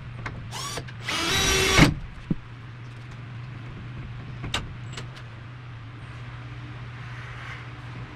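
A cordless drill runs in two short bursts about a second in, a brief blip and then a loud whir of under a second that drops in pitch as the trigger is released, followed by a few sharp clicks and knocks over a steady low hum.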